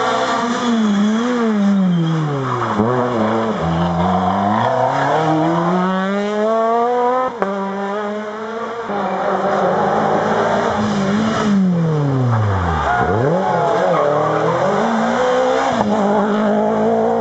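Rally car engine driven hard up a tarmac stage and passing close: the revs climb and fall away again and again through the gear changes, sinking very low about thirteen seconds in before pulling up again. There is a short sharp crack a little past seven seconds.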